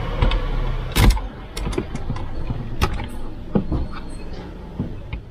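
Scattered sharp clicks and plastic knocks as wiring-harness connectors are worked loose with a screwdriver from the back of a car stereo head unit, the loudest knock about a second in.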